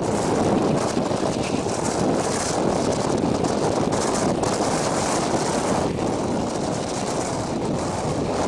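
Steady rush of wind on the microphone and the rumble of a passenger train running at speed, heard from an open coach window or door.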